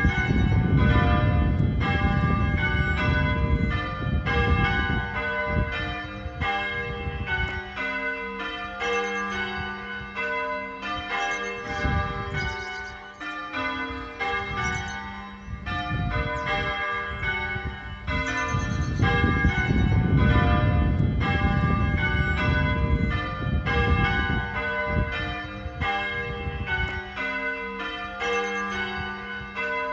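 Four church tower bells rung in changes, struck one after another in a steady, unbroken rhythm with the tones ringing on between strikes. A low rumble runs under the bells for the first several seconds and again about twenty seconds in.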